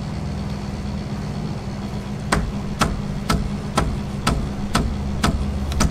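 Shapeoko 3 CNC's Z-axis stepper motor humming as it drives the bit down onto the touch probe with no Z-clip attached, so the probe never registers contact. From a little over two seconds in, the bit is jammed against the aluminium probe block and the stalled stepper knocks steadily, about twice a second.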